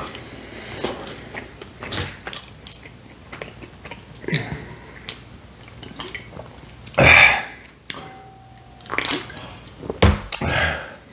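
A man drinking soda from an aluminium can: sips, swallows and wet mouth noises, with a loud breathy gulp or exhale about seven seconds in. The can is set down on the table about ten seconds in.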